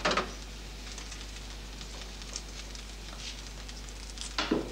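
Faint stirring sounds from a spoon moving through ratatouille in a pot on the stove, with light scrapes and ticks. There is a brief louder clatter at the start and another near the end.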